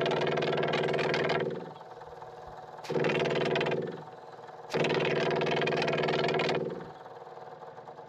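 Electric fuel pump of an Onan QG 5500 generator buzzing steadily while the prime button is held, in three runs that stop and start again. It runs but delivers no fuel to the disconnected line, acting like it's cavitating, like it's got air in the line.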